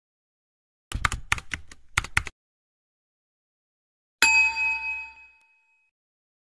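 Logo-intro sound effects: a quick run of typewriter-like clacks about a second in, then a single bright chime that rings out and fades.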